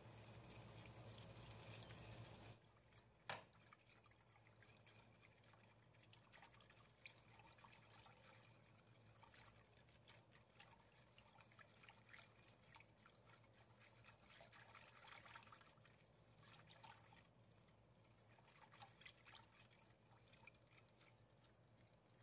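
Faint whisking and stirring of a thin liquid mixture in a bowl: soft sloshing with many small clicks of the whisk against the bowl, and one sharper tap about three seconds in.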